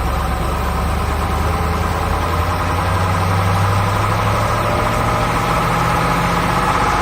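Heavy construction-machine engine running steadily at idle, starting abruptly and cutting off suddenly near the end.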